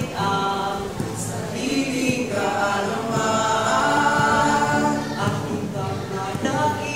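A small group of young voices singing a song together in sustained phrases, accompanied by a strummed acoustic guitar.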